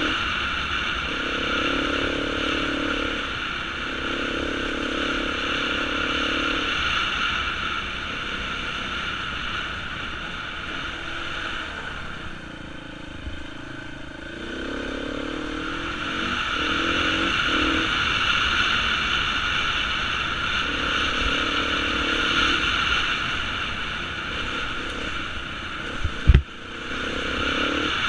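Beta 350 dirt bike engine under way, throttle opening and closing, dropping off briefly around the middle and then rising in pitch as it accelerates. A single sharp knock near the end.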